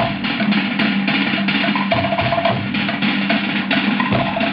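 Cook Islands drum ensemble playing a fast, even rhythm for a dance: wooden slit-log drums (pate) clattering over a deep skin bass drum.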